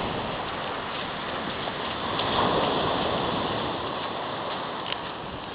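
Sea waves washing on the shore, with one wave swelling louder about two seconds in and then receding.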